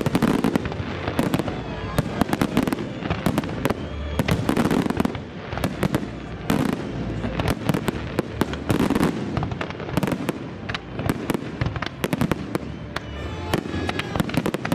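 Aerial firework shells bursting in quick, irregular succession: a dense barrage of sharp bangs and crackles over a continuous low rumble.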